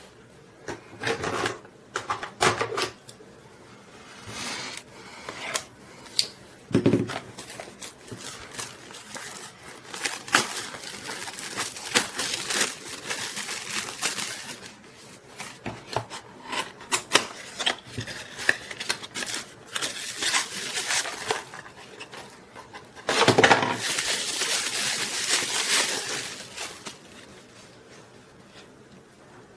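Hands handling a small plastic mini tripod: scattered clicks, taps and knocks, with a longer stretch of rustling about 23 seconds in that is the loudest part.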